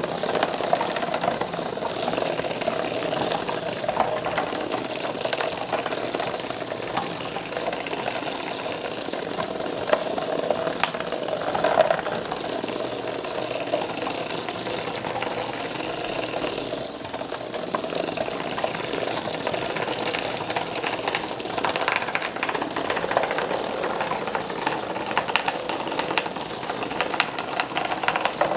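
Small battery-powered vibrating robotic toy bugs buzzing steadily, with a constant ticking rattle as they skitter against a cardboard box and glass jars.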